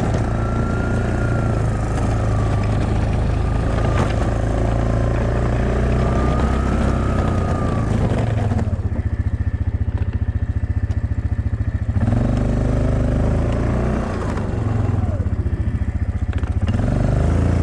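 2007 Yamaha Kodiak ATV's single-cylinder engine running while plowing snow, dropping to an evenly pulsing idle for about three seconds near the middle, then picking up again and rising near the end.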